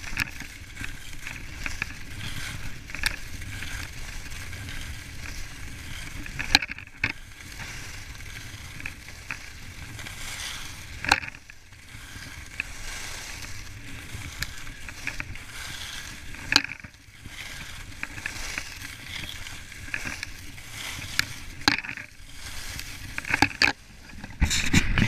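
Skis carving and scraping over groomed snow on a fast downhill run, with wind rumbling on the camera microphone and a few sharp clicks. The rumble grows louder near the end.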